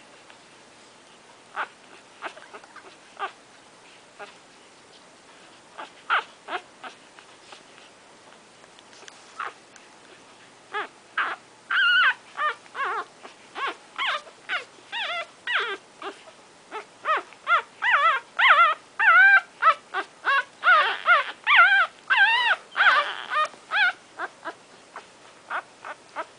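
Week-old Shorkie Tzu puppies whimpering and squeaking while nursing, in short high calls that bend up and down. A few scattered calls at first, then from about halfway through a quick, almost continuous run of many calls, louder.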